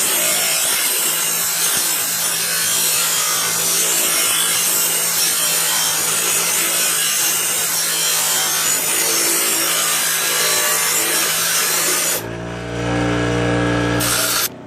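Bench grinder grinding the plasma-cut steel edge of an old circular saw blade: a steady, loud, gritty grinding over the motor's hum. About twelve seconds in the grinding stops, and the grinder runs on alone briefly before the sound cuts off.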